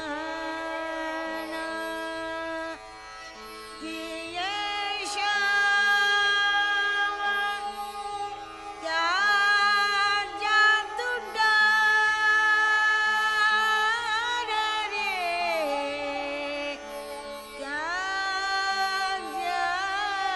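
Hindustani classical dadra: a slow, unmetred melody of long held notes that slide between pitches, from sarangi and voice, over a steady tambura drone.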